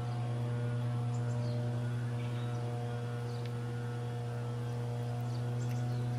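Grass-mowing machine's small engine running steadily at constant speed, a continuous drone.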